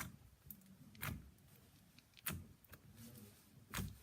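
Slime being poked and stretched by hand: a few faint, short squelches and clicks, three clearer ones spread across the stretch.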